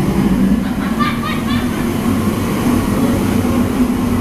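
Steady, loud mechanical drone with a low hum, with voices briefly audible about a second in.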